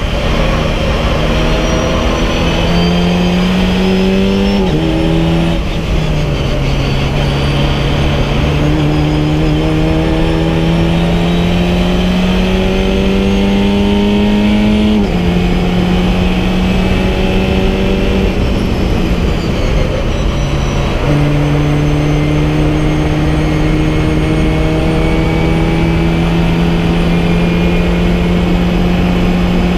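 VW Fun Cup race car's engine heard from inside the cabin at racing speed, its pitch climbing slowly through each gear and dropping at gear changes about 5 and 15 seconds in. It falls back and jumps again around two-thirds of the way through, then climbs slowly to the end, with steady road and wind noise underneath.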